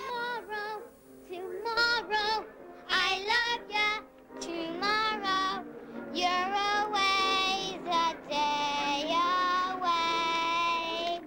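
A young girl singing a song at an audition, in short phrases with vibrato on the held notes and brief breaks between phrases.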